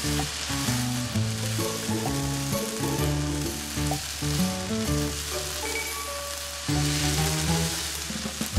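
Red chili-paste seasoning sauce sizzling and bubbling in a wok as a wooden spoon stirs it, over background music.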